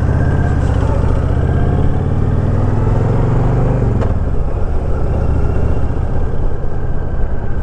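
Honda VTX 1300 V-twin motorcycle engine pulling away, its pitch rising for about three and a half seconds, then falling back about four seconds in before running on.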